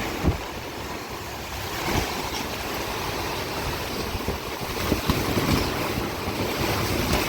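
Steady downpour of heavy rain with wind buffeting the microphone, and a few faint knocks.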